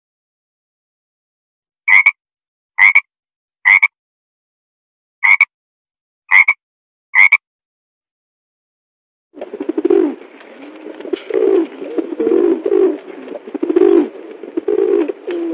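Frogs calling: six short, sharp calls spaced about a second apart, then after a pause a dense chorus of low, overlapping croaks.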